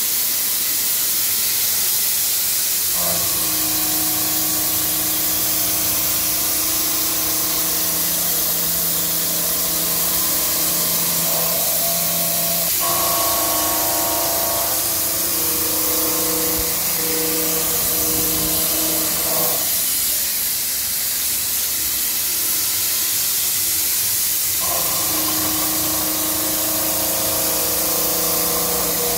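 UDM-2216 three-axis CNC machining center milling steel, with a steady hiss throughout. Sustained steady tones come in about three seconds in, drop out for several seconds about two-thirds of the way through, then return.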